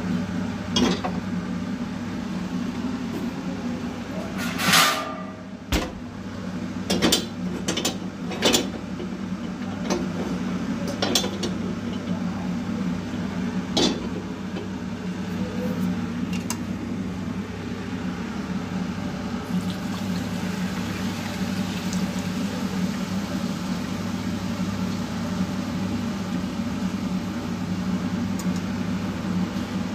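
Chicken pieces deep-frying in hot oil, a steady hiss and hum, with metal utensils clattering and clinking against the pot several times in the first half.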